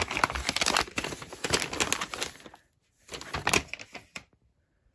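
A folded sheet of paper crinkling and rustling as it is opened and handled, in a long stretch and then a shorter one about three seconds in, before it stops.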